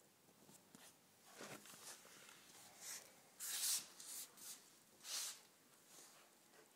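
Komondor puppy's paws scrabbling and rustling on a rug as it pushes along the floor: a handful of brief, faint scratchy rustles, the loudest a little past halfway.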